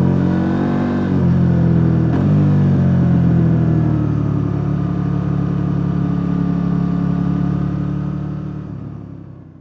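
KTM 890 Duke R's parallel-twin engine on its stock exhaust, heard onboard while riding: the pitch shifts a couple of times in the first two seconds, then holds steady before the sound fades out near the end.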